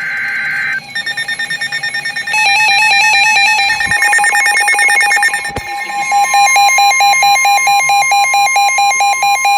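Several NOAA weather radios sounding their alert alarms at once, triggered by a warning broadcast: a brief buzzing digital data burst (the SAME header), then overlapping fast beeping and warbling alarm patterns. About six seconds in, the broadcast's steady 1050 Hz warning tone joins them.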